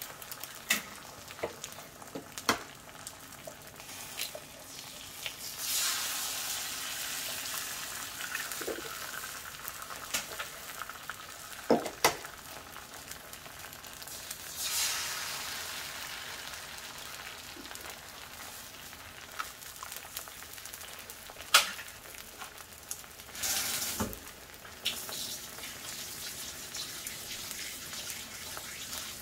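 Eggs frying on a Blackstone griddle's seasoned steel top: a steady sizzle that swells loudly three times as fresh eggs go onto the hot plate. A few short sharp clicks are heard along with it.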